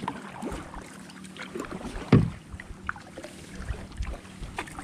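Kayak paddling: a double-bladed paddle dipping and pulling through calm water, with small irregular splashes and drips, water lapping at the hull, and one louder knock about two seconds in.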